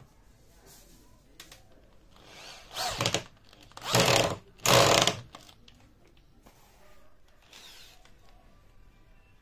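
Cordless drill running in three short bursts, starting about two seconds in, the last two loudest, as its bit bores into a finger-jointed rubberwood board.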